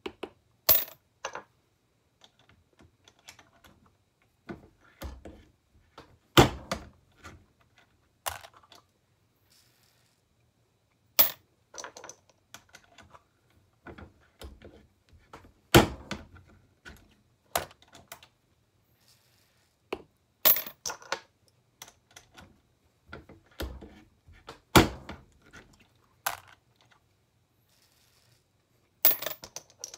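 Irregular sharp metallic clicks and clinks from pulling bullets out of 7.62 NATO cartridges with a press-mounted bullet puller and handling the loose bullets and brass cases. A few louder clacks stand out every several seconds.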